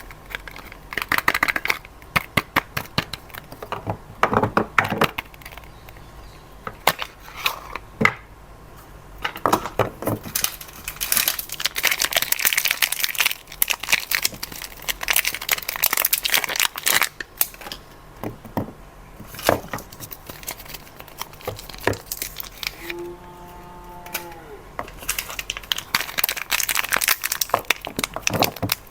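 Soap bar wrappers being unwrapped by hand, crinkling, crumpling and tearing in irregular bursts, with sharp clicks and taps between.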